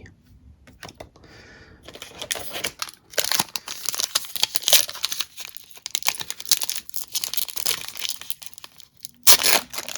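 Foil trading-card pack wrapper crinkling and being torn open, with dense crackling from about two seconds in and a loud rip just after nine seconds.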